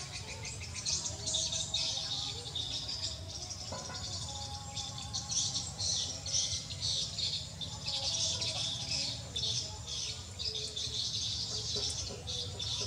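Birds chirping and calling in a dense, continuous chorus over a steady low hum.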